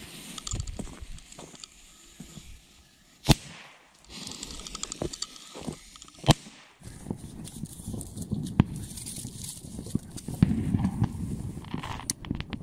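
A lit firecracker fuse hissing, then two sharp firecracker bangs about three seconds apart. Footsteps and rustling over dirt and dry leaves follow.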